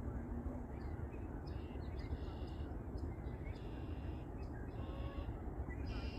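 Birds calling: about five short calls, roughly a second apart, over a steady low rumble.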